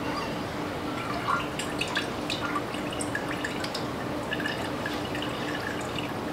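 Kombucha liquid dripping off a wet SCOBY held above a glass jar: scattered small drops, starting about a second in and continuing to near the end.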